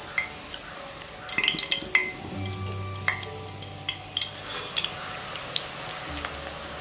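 Background music with long held notes, over scattered light metallic clinks from a wire skimmer knocking against a steel frying pot as murukku is lifted and turned in hot oil.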